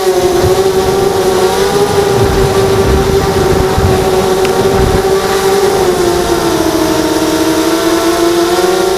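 Quantum Thorax hexacopter's electric motors and propellers whining steadily in flight, the pitch dipping a little about seven seconds in and then rising again, with some low rumble in the middle.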